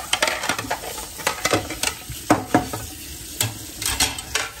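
Dishes being washed by hand in a stainless steel sink: tap water running and a plate being scrubbed with a sponge, with irregular clinks and knocks of dishes against the sink.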